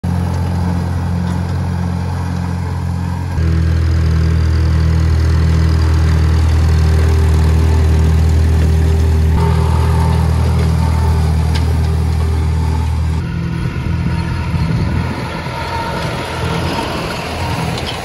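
Case 730 tractor engine running at a steady speed while pulling a rotary hay rake through cut hay.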